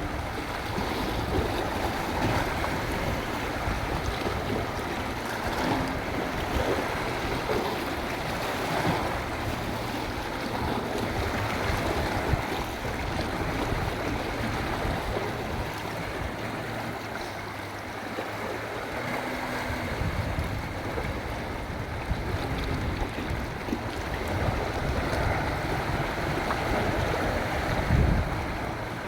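Sea waves washing onto the shore in a steady surf, with wind gusting on the microphone as a low rumble.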